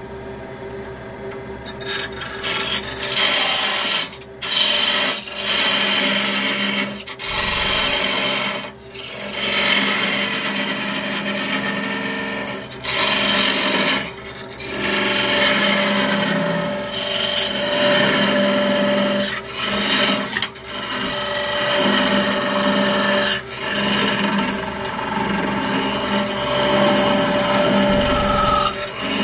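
A 2 mm parting tool cutting into spalted beech spinning on a wood lathe: a loud, noisy cutting sound broken by short pauses every few seconds as the tool is eased off and fed in again, over the steady hum of the lathe.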